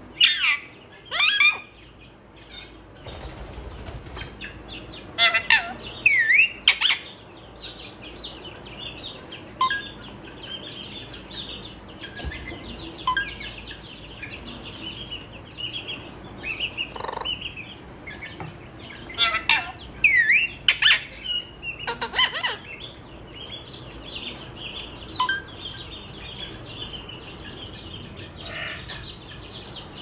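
Pet parrot calling: loud, sweeping high whistles and squawks come in clusters, with softer chattering chirps in between.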